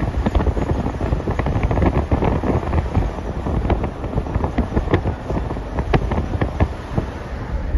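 Wind buffeting the microphone of a phone filming from a moving car at motorway speed, a dense rushing noise full of irregular crackles, over the low rumble of the car on the road.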